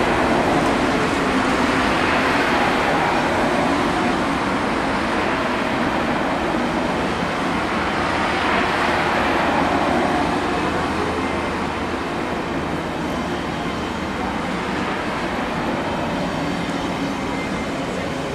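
ICE high-speed train rolling past, a steady rushing of wheels on rails with a low steady hum that slowly eases as the train goes by.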